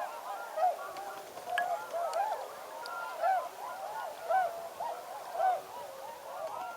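A large flock of snow geese and tundra swans calling, a dense chorus of overlapping high honks with louder single calls standing out about once a second.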